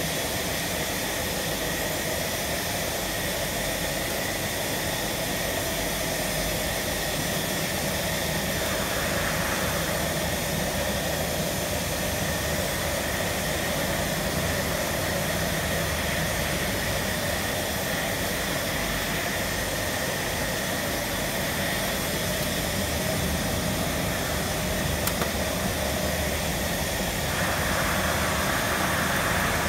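Environmental test chamber running with its door open, its circulation fan and refrigeration machinery making a steady hum and rush of air. The tone shifts slightly about nine seconds in and again near the end.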